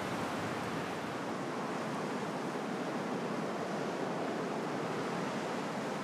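Rough sea surf breaking in a steady wash, whipped up by strong onshore wind.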